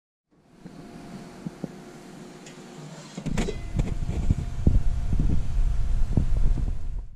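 A faint steady hum with a few light clicks, then a metal clink about three seconds in as the lid of a roasting pan is lifted, followed by loud low rumbling and knocks of handling until the sound cuts off.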